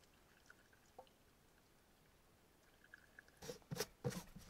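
Pickling brine trickling faintly from a small metal pot into a glass jar of sliced red cabbage. About three and a half seconds in come a few loud knocks and scrapes as the metal pot is set down and the lid goes onto the jar.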